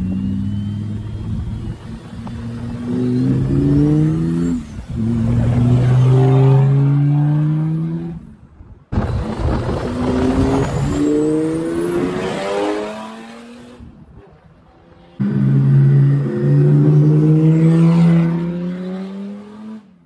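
Engine-swapped Land Rover Discovery's Mercedes OM606 straight-six turbo-diesel accelerating hard, its note climbing in pitch through each gear and dropping at every shift, over several hard runs that cut off abruptly between them.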